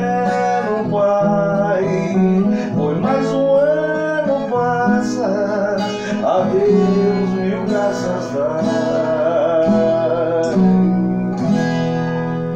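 Viola caipira, the Brazilian ten-string folk guitar, playing an instrumental passage of a hymn melody, with the chords and the melody plucked together. The voice joins in briefly near the start.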